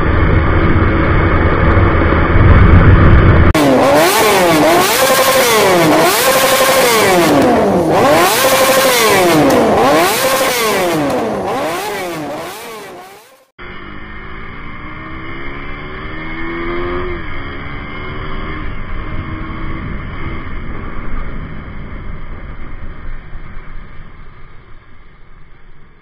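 Onboard sound of a single-cylinder sport motorcycle riding, engine and wind on the camera. A few seconds in this gives way to a loud edited stretch of sweeping tones that rise and fall about once a second and cut off abruptly; the motorcycle engine then returns, its pitch climbing as it accelerates before it settles into a quieter cruise.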